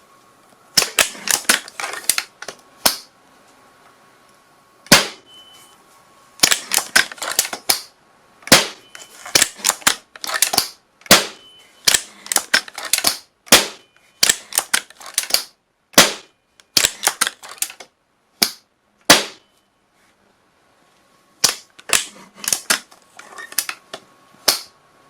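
Gunshot sound effects: sharp, dry shots fired in quick volleys of several shots a second, broken by short pauses, with a single shot about five seconds in and a longer silent gap near the end before a last volley.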